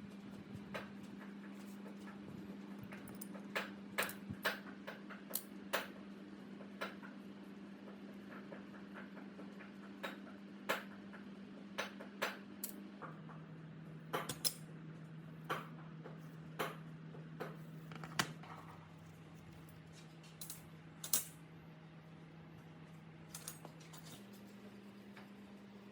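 Irregular sharp metal clicks and clinks of hand tools and small parts being handled and set down. Underneath runs a faint steady low hum that drops in pitch about halfway through and comes back up near the end.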